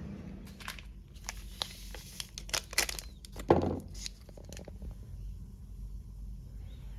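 Plastic packaging crinkling and clicking as it is handled, a quick run of sharp crackles with one louder knock about three and a half seconds in.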